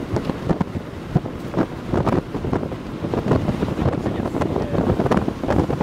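Strong, gusty wind buffeting the microphone: a continuous low rumble broken by irregular thumps.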